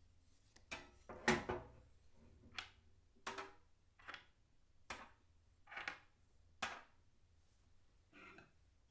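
A series of about nine irregular knocks and clunks of hard objects being handled and set down.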